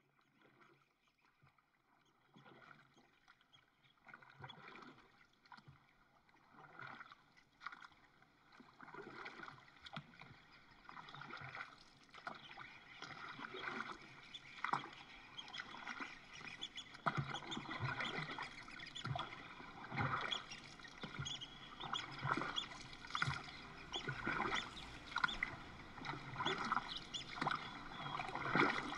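Water sounds of a canoe being paddled: irregular splashes and lapping about once a second, fading in from near silence and growing louder.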